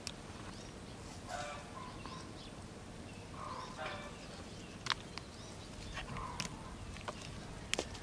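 Birds calling, a short call every couple of seconds, with a few sharp snaps as young tamarind pods are plucked from the branches.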